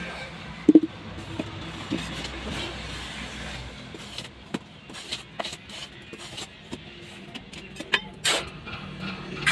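Hand work on wet cement in a tile mould: scattered scrapes and taps of a steel trowel and float against the mix and the mould. About a second in there is a louder knock with a short ring, like a metal mortar pan being set down.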